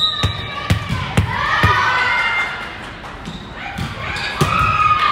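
A volleyball bouncing repeatedly on a hardwood gym floor, several thuds a fraction of a second apart, with girls shouting and cheering over it.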